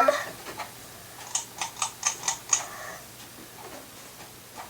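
A quick run of about seven light, sharp clicks over a second and a half, over a faint steady hum.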